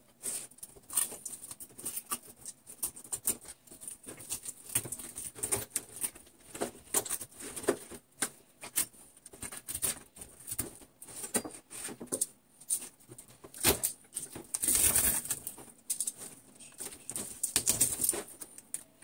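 Rapid, irregular scraping and clicking of a knife and metal shears working the tough skin of a triggerfish on a plastic cutting board, with a longer rasping scrape about fifteen seconds in.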